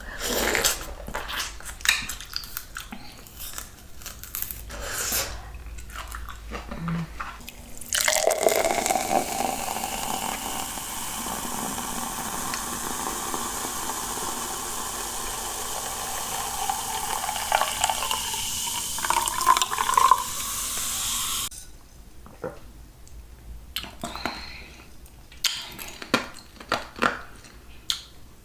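Liquid pouring in a steady stream for about thirteen seconds, between stretches of small wet clicks and smacks from eating.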